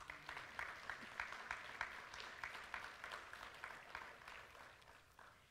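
Congregation applauding, faint, dying away near the end.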